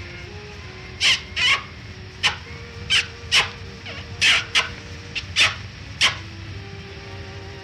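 A boy's loud smacking kisses, about ten in quick, uneven succession. They sound over the steady hiss and low hum of an unrestored early-1930s film soundtrack.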